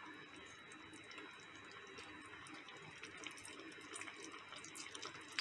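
Faint steady hiss with a few small ticks: mutton pieces simmering in gravy in a metal pot on a gas stove.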